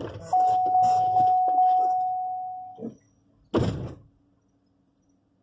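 A vehicle's door-open warning chime sounds as a steady high tone, re-struck about every half second, for about two and a half seconds. About a second after it stops, the vehicle door shuts with one thud.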